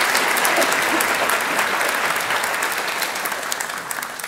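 Audience applauding steadily, then fading away near the end.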